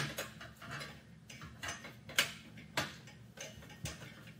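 Irregular small metal clicks and taps as stainless steel U-bolts and their nuts are worked onto an aluminium cart axle, about one click every half second.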